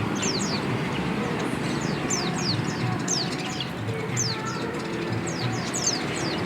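Many caged small songbirds chirping: short, high notes that slide downward, coming in quick runs of three or four, over a steady low din of background noise.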